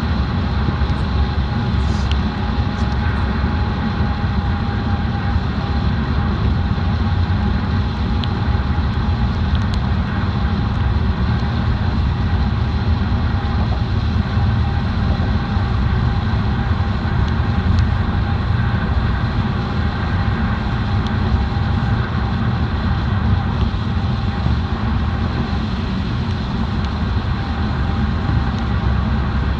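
Steady rumble of a car driving, deep and even throughout, with a faint steady whine above it.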